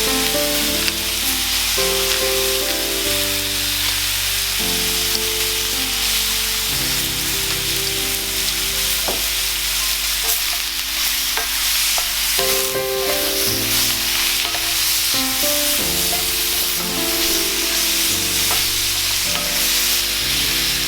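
Food sizzling as it is stir-fried in a pan, with a few sharp clicks about halfway through, over background music.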